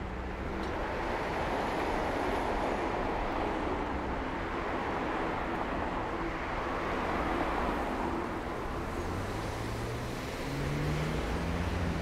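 City street traffic at a signalised intersection: a steady wash of car engines and tyre noise. Late on, an engine note rises as cars pull away through the junction.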